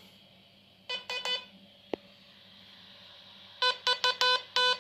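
Hand-keyed Morse code beeps: the modulated oscillator tone of the kit's AM transmitter, picked up over the air and played through the radio receiver kit. A quick group of about three short beeps comes about a second in, then a single click, then a run of about five beeps near the end.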